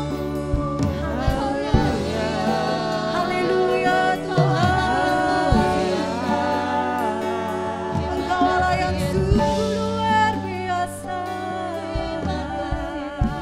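Church worship music: a slow gospel song with singing over sustained instrumental chords, easing off slightly near the end.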